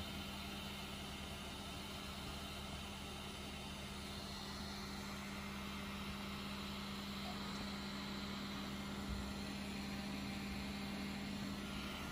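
Cooling fans of a large toolchanger 3D printer running steadily: an even hiss over a constant low hum, with a faint low bump about nine seconds in.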